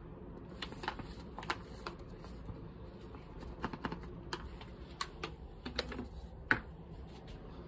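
A dozen or so light, irregular clicks and taps over a low steady hum, the sharpest one near the end.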